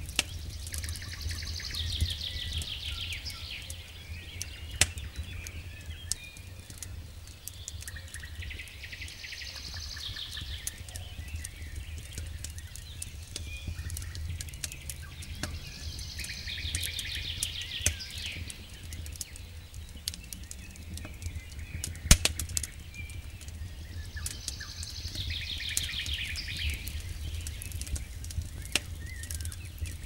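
Firewood burning in a campfire, crackling with scattered sharp pops; the loudest pop comes about two-thirds of the way through. A songbird repeats a short descending trill four times, roughly every eight seconds, over a low steady rumble.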